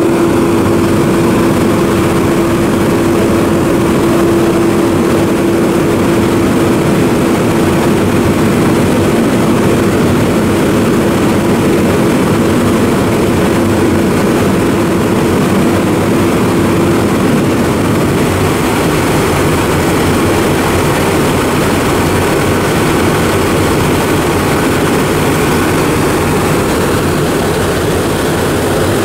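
Fire engine's diesel engine running steadily: a loud, constant drone with a steady whine over it that fades out about two-thirds of the way through.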